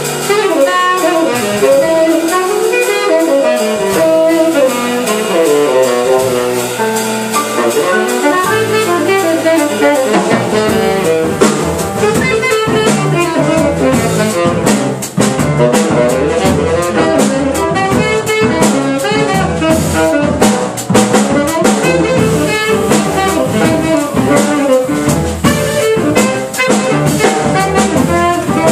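Live jazz combo: a saxophone plays the melody over a double bass, and a drum kit comes in about ten seconds in, filling out the band.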